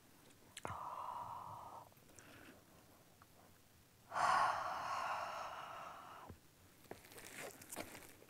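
A person breathing out heavily twice while eating: a short breath about a second in, then a longer, louder one around four seconds in. A few small clicks come between and after.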